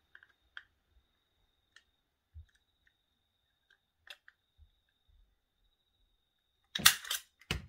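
Handheld circle punch working through a folded strip of aluminium can: faint handling clicks as the strip is lined up in the punch, then two sharp clunks under a second apart near the end as the punch is pressed.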